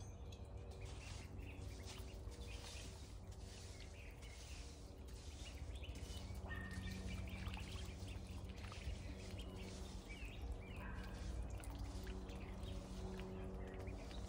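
Ducks dabbling and splashing in shallow muddy puddles, with small wet slurping and dripping sounds over a low steady hum. A couple of short bird chirps come through, about halfway and again near eleven seconds in.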